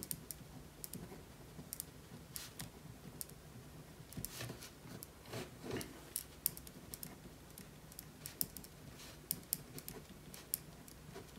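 Ballpoint pen writing on a sheet of paper on a table: faint scratchy strokes and light irregular taps as letters and symbols are written.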